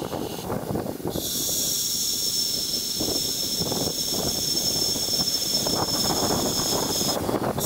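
Wind gusting over the microphone and through the trees, with a steady high hiss that starts about a second in and cuts off shortly before the end.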